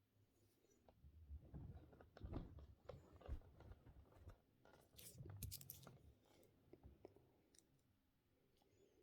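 Near silence with faint, irregular clicking and rustling, busiest between about one and six seconds in.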